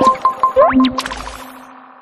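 Short electronic logo jingle: quick rising swoops and bright chiming tones over a held note, fading away in the second half.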